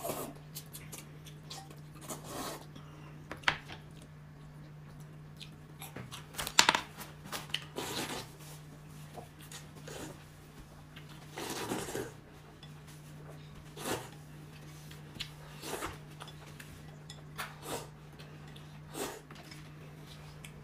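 Tableware at a meal: chopsticks and spoons tapping and clinking against bowls and dishes in scattered knocks, the loudest about six and a half seconds in, over a steady low hum.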